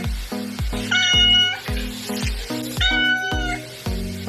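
Upbeat background music with a steady drum beat, and a cat meowing twice, each meow drawn out and flat in pitch, about two seconds apart in time with the music.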